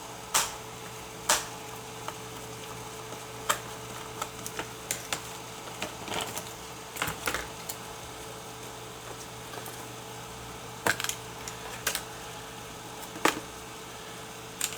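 Irregular sharp clicks and light knocks of a laptop's plastic casing and parts being handled as its battery is unclipped and removed, over a steady faint hum.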